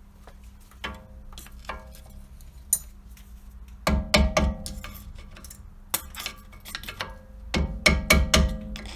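Hammer blows on metal knocking seized brake pads out of a car's rear brake caliper bracket, each strike ringing briefly. A few light taps come first, then a quick run of heavy blows about four seconds in and another near the end.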